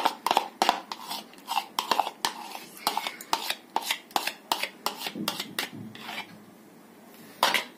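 Kitchen utensils clinking and scraping against a mixer-grinder jar as freshly whisked curd is emptied out of it: a quick run of clinks and scrapes, then a single louder knock near the end.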